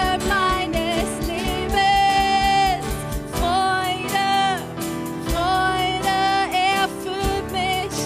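A worship band playing a praise song, with a singer holding long sung notes over the band and a regular drum beat during the first second.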